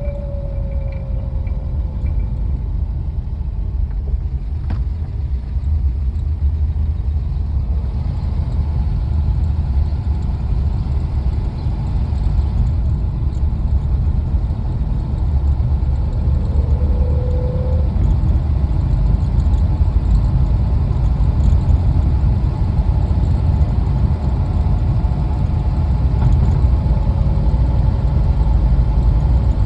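1951 Studebaker Land Cruiser on the move, its V8 engine and running gear giving a steady deep rumble. Faint whining tones come and go over it: one gliding down in pitch at the start, a brief rising one about halfway through, and a steadier higher whine through the second half.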